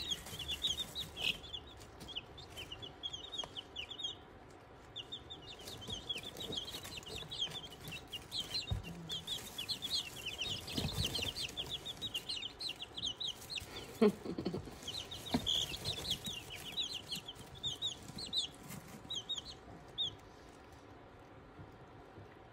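Young chicks peeping: many short, high cheeps in quick runs, thinning out and stopping in the last couple of seconds. One brief, lower falling sound stands out about two-thirds of the way through.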